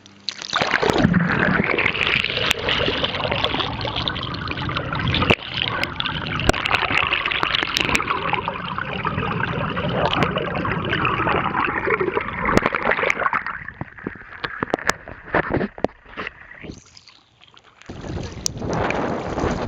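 Rushing, gurgling river water around a kayak moving through fast current, with small splashes and knocks. It eases for a few seconds near the end, then picks up again.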